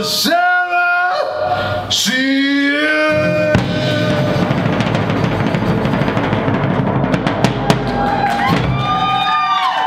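Live acoustic music: a man sings long held notes over acoustic guitar, then cymbals and drums take over for several seconds with a few sharp hits, and the held singing comes back near the end.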